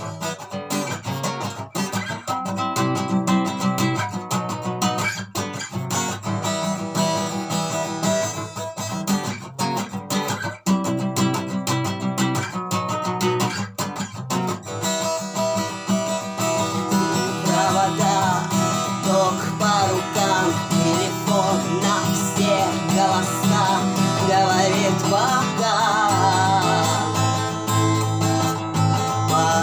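Acoustic guitar strummed in a steady rhythm, with sharp percussive knocking strokes on the strings, the beat of the strum. From about halfway a wavering melody line, likely a voice, rides over the guitar.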